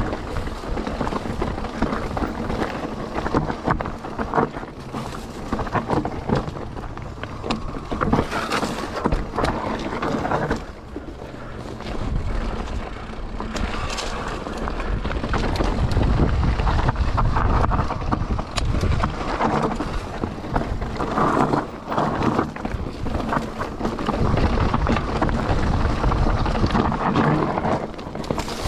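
Mountain bike riding down a rocky trail, its tyres rolling over stones, with many small knocks and rattles. Wind rumbles on the microphone, heaviest in the middle and near the end.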